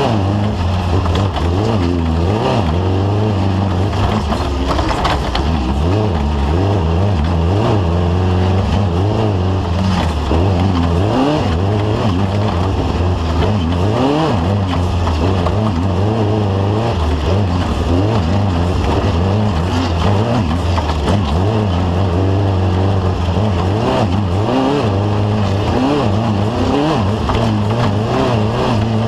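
Off-road race vehicle's engine running hard under race load, its pitch rising and falling rapidly and over and over as the revs swing.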